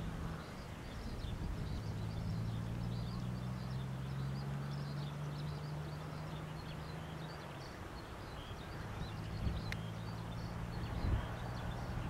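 Wind rumbling on the microphone over a low steady hum that drops out for a moment past the middle, with faint high chirping scattered throughout.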